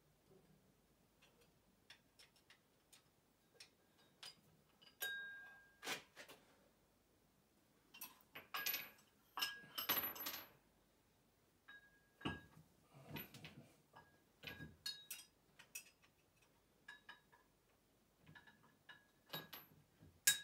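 Metal weight plates clinking and knocking against each other and the dumbbell handle as a dumbbell is being loaded. It is a scatter of sharp clinks, some with a short metallic ring, louder and busier around the middle.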